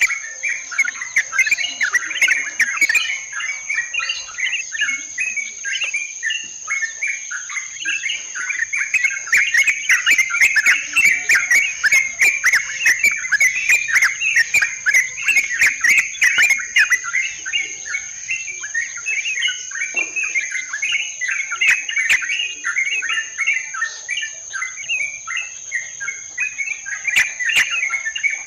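Yellow-vented bulbuls (trucukan) in a dense chorus of overlapping bubbly chattering calls without pause. A steady high insect whine runs underneath.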